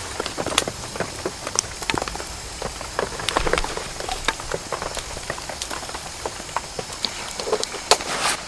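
Irregular small clicks and taps of plastic fuel fittings, a jerry-can cap connector and a syringe, being handled and pushed together, over a steady faint hiss.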